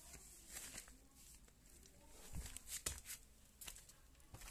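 Quiet room tone with a few faint rustles and light taps scattered through it.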